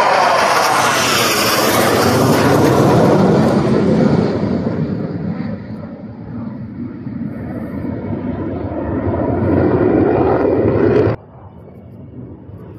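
Formation of Black Eagles T-50B jets passing overhead, their jet engines loud, with falling pitch sweeps in the first seconds. The noise eases after about four seconds, swells again, then cuts off suddenly near the end, leaving a much quieter background.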